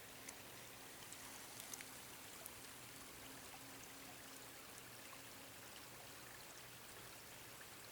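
Near silence: a faint, even outdoor hiss with a few faint ticks in the first couple of seconds and a faint low hum underneath.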